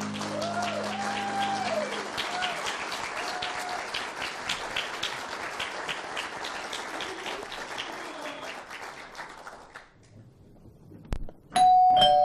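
Theatre audience applauding, with a few whoops in the first seconds, as the last chord of the music dies away; the clapping fades out about ten seconds in. Just before the end a doorbell chimes, a two-note ding-dong.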